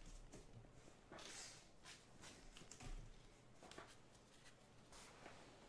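Near silence with faint, scattered soft rustles and light clicks of trading cards being handled and set down on a table.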